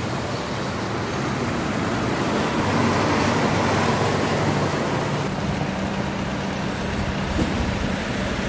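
Steady road traffic noise, a continuous rush of passing cars with a low engine hum underneath, swelling slightly a few seconds in.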